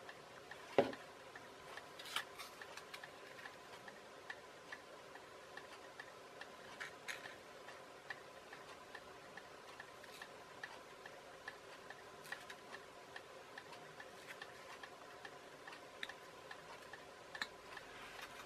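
Faint, irregularly spaced small clicks and taps of hands handling foam parts and masking tape on a cutting mat, over a low steady hum, with one louder knock about a second in.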